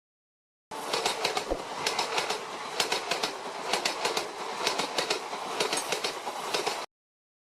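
Train passing with its wheels clattering over the rail joints, a run of sharp clicks over a rumble. It starts within the first second and cuts off suddenly near the end.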